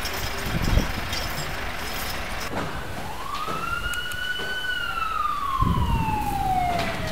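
An emergency siren sounds one wail: it starts about three seconds in, rises quickly, holds for a moment and then slides slowly down in pitch. Underneath runs a steady rushing noise with a few low thumps.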